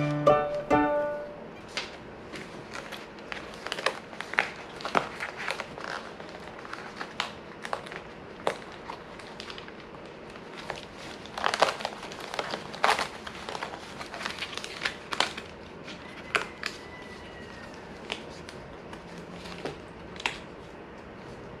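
Die-cut pieces of a cardboard kit being pressed and torn out of their sheets: an irregular run of sharp cardboard cracks and snaps, thickest about halfway through. A short violin tune ends about a second in.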